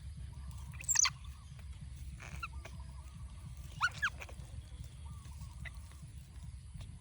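Baby monkey giving a few short, high-pitched rising squeals: one about a second in and two close together about four seconds in, over a steady low rumble.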